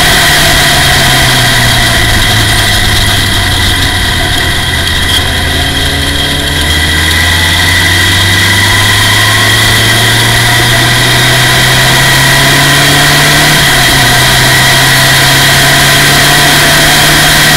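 Formula Ford race car's engine heard from the cockpit under power. Its note climbs steadily, drops sharply at a gear change about three-quarters of the way through, then climbs again.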